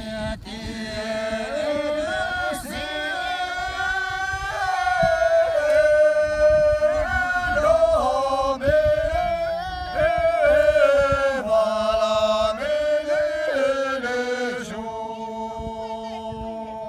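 A group of men and women singing together in unison: a slow chant-like melody with long held notes that slide between pitches, ending on one long held note.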